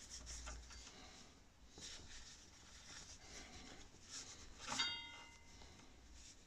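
Cloth wiping and rubbing over a motorcycle's front brake caliper and disc, faint soft scuffing. Near the end a light knock on metal rings briefly with a few clear tones.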